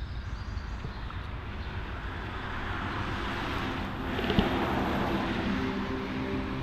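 A rushing noise that swells to its loudest about four to five seconds in, with a sharp click near its peak.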